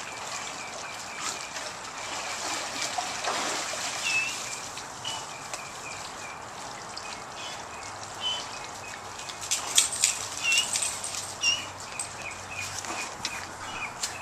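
Pool water lapping and splashing as dogs paddle through it, with sharper splashes about ten seconds in. A small bird chirps over and over in the background.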